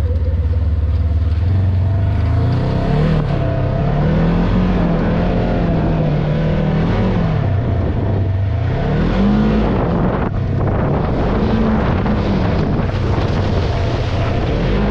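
Polaris off-road vehicle's engine under way, its pitch rising and falling over and over as the driver works the throttle through a lap of a dirt track.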